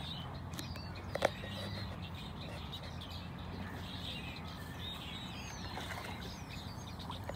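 Small birds chirping repeatedly, short high rising and falling calls, over a steady low hum, with one sharp click about a second in.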